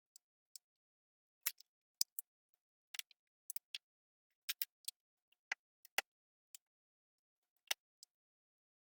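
Plastic Lego bricks clicking as they are handled and pressed together: sharp, irregular clicks, a couple a second.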